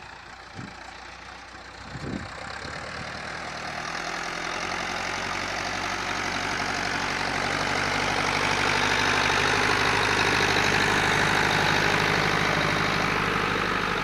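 Massey Ferguson 575 tractor's four-cylinder diesel engine running steadily, growing louder as it draws near and loudest about two-thirds of the way through, then easing slightly. A couple of low thumps come in the first two seconds.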